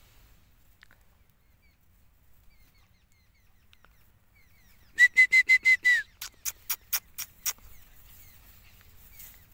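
A person whistling to call a puppy: a quick run of about six short, same-pitched whistled chirps in one second, followed by a run of sharp clicks, about four a second.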